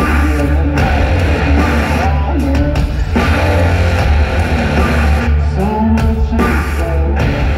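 Loud live rock music from a band through a concert PA, with a heavy, steady bass, electric guitar and drums under a sung vocal line that glides in pitch.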